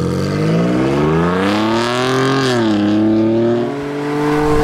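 Ford Bronco's turbocharged engine with a Stainless Works downpipe and Redline straight-through catback exhaust, accelerating hard. The exhaust note rises in pitch, drops sharply about two and a half seconds in at an upshift, then pulls steadily again.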